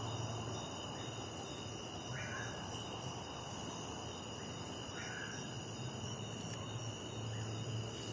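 Outdoor nature ambience: insects calling steadily at several high pitches, with a short call repeating about every three seconds.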